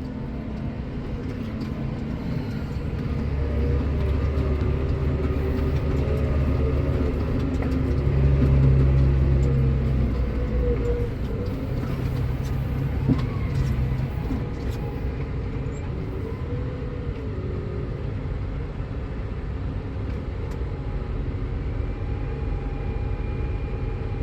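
Tractor engine running steadily, a deep rumble that grows heavier from about three seconds in, is loudest around eight to ten seconds, and eases off after about fourteen seconds, with the engine note wavering as the revs change.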